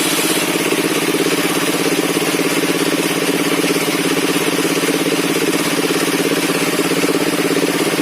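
Engine-driven circular sawmill running steadily, its engine giving a fast even pulse.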